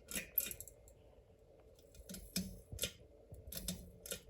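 Ceiling fan pull-chain switch being pulled: a series of short metallic clicks, with the chain rattling against the switch housing.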